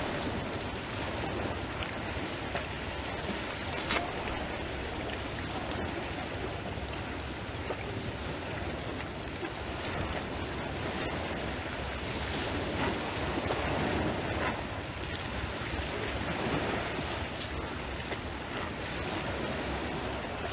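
Steady wash of small waves on a pebble shore, with wind buffeting the microphone. There is a single brief click about four seconds in.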